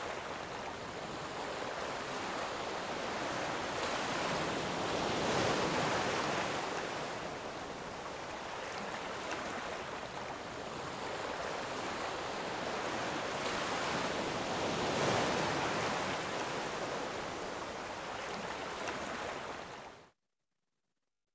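Ocean waves washing in, a steady rushing that swells and ebbs slowly, twice. It cuts off abruptly near the end.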